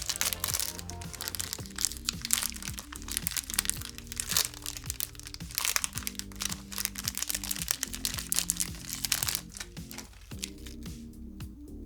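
Background music with the crinkling and crackling of plastic candy wrappers being handled and torn open. The crackling thins out near the end.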